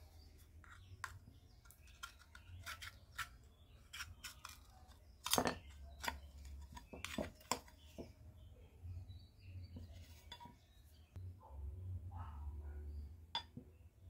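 Metal blade prying and scraping an LED bulb's circuit board off its aluminium heat-sink disc: a string of sharp clicks and scrapes, the loudest about five seconds in.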